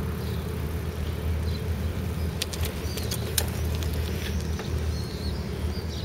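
Wind buffeting the phone's microphone as a low, steady rumble outdoors, with a few sharp clicks between two and a half and three and a half seconds in and faint bird chirps.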